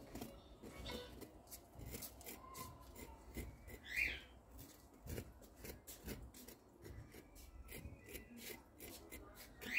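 Faint rubbing and clicking of nitrile-gloved fingers working wet cement paste over a concrete statue. Two short high-pitched chirps stand out, about four seconds in and at the very end.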